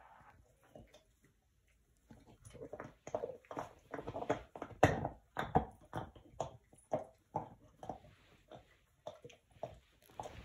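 Dog chewing on something held between its front paws: short wet mouth sounds about twice a second, starting about two seconds in.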